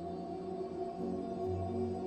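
Ambient soundtrack music of sustained, held tones, growing a little louder about a second in.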